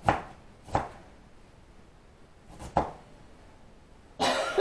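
Cabbage being chopped by hand with a knife: three separate sharp chops a second or two apart, then a louder, longer noisy burst near the end.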